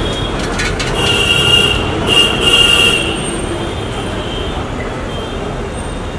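Potato chops deep-frying in oil in a large iron kadai over a coal fire, against steady street traffic noise. A high metallic squeal with some clatter sounds from about one to three seconds in.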